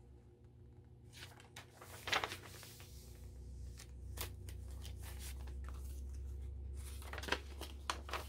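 Paper pages of a handmade junk journal being handled and turned, with rustling and crinkling in scattered bursts, the loudest about two seconds in and more near the end. A low steady hum comes up about three seconds in.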